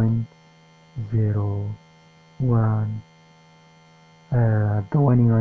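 A few slow, drawn-out spoken words over a steady electrical mains hum that runs unbroken through the pauses.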